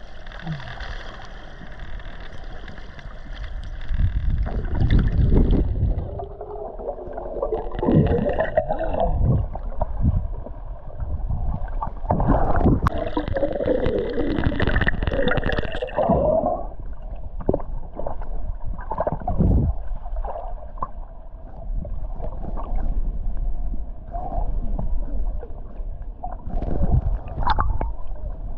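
Water gurgling and sloshing in irregular, muffled surges.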